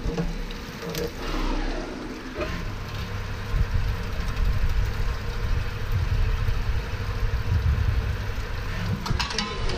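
Automatic valve-lifter drilling and chamfering machine running, with a steady mechanical noise and a low rumble that grows about three seconds in. A few sharp clicks sound about a second in, around two and a half seconds, and near the end.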